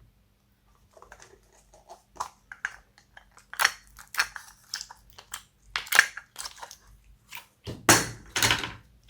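Slime being squished and kneaded by hand, giving a run of short, irregular pops and clicks. They start about a second in and grow louder, loudest near the end.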